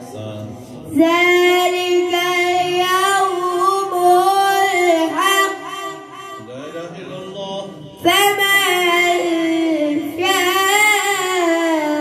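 A boy's high voice reciting the Quran in melodic tajweed style, holding long ornamented notes. One long phrase ends about six seconds in, and a second begins about two seconds later.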